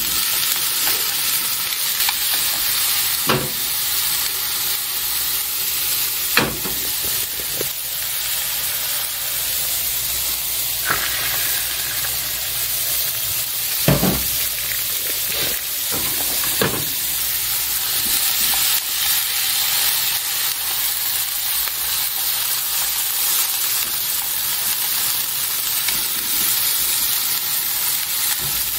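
Chicken breast and cabbage sizzling steadily as they fry in a nonstick pan, with egg for a rolled omelette cooking in a second pan. A few sharp knocks of chopsticks against the pan as the food is stirred.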